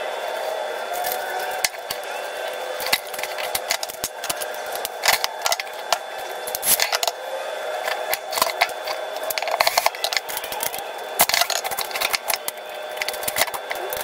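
Metal clinks, taps and rattles from handling the fan's chrome wire guard and parts while the fan is being reassembled, coming in irregular clusters over a steady background hum.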